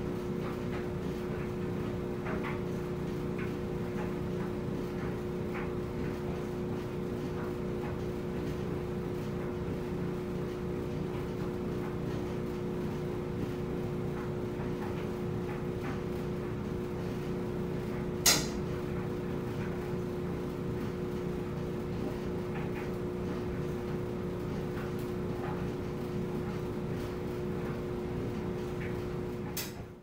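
Front-loading clothes dryer running: a steady motor and drum hum with a droning tone, and faint light ticks from inside the turning drum. One sharp click stands out about two-thirds of the way through, and the sound cuts off abruptly at the very end.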